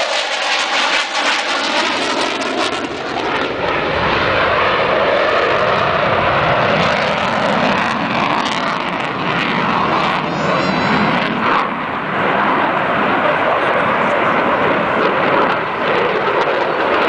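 An F-16 fighter jet's engine roaring in a flying display. A phasing sweep falls in pitch over the first few seconds. From about four seconds in, the roar grows fuller and stays steady and loud.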